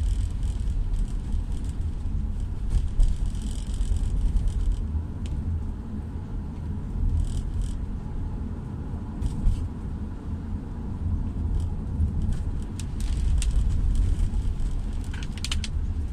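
Steady low rumble of a car driving on a wet road, heard from inside the cabin, with occasional light clicks.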